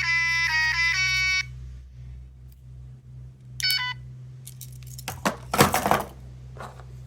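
A capsule toy's electronic sound chip plays a short buzzy beeping melody that cuts off about a second and a half in, then gives a brief second snippet near the middle. Near the end comes a louder clatter of sharp clicks and rattles.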